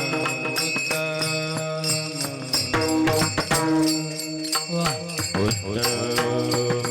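Varkari kirtan devotional music: voices chanting over a held drone, with small hand cymbals (taal) striking a quick, steady beat.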